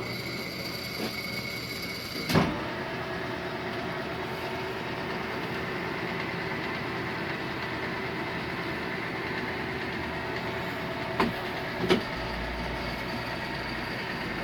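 Clausing metal lathe running steadily with a new 5C collet chuck turning on the spindle, a constant motor hum with a few steady tones. Three short sharp clicks, one about two seconds in and two close together near the end.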